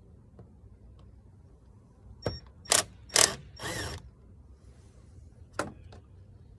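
Milwaukee M12 right-angle impact driver run in four short bursts about two to four seconds in, backing out the air cleaner box screws, then a single sharp click.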